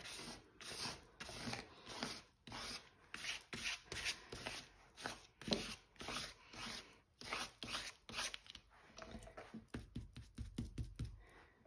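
Dry chalk paint being scrubbed onto paper in short, scratchy strokes, roughly two a second and somewhat irregular, growing lighter and quicker near the end.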